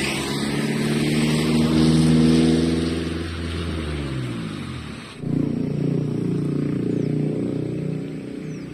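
Suzuki GSX150 Bandit single-cylinder motorcycle engine heard from the rider's seat, pulling with its pitch rising for about two seconds, then easing off and falling. About five seconds in it dips briefly and picks up again, as at a gear change, with a haze of wind and tyre noise over it.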